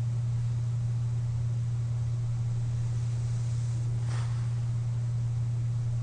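A sleeper breathing through a CPAP mask: one short, breathy exhale about four seconds in, over a steady low hum.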